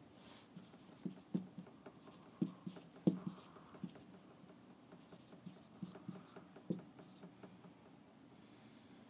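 Marker writing on a whiteboard: faint, irregular taps and short scratching strokes of the felt tip, the sharpest between about one and seven seconds in.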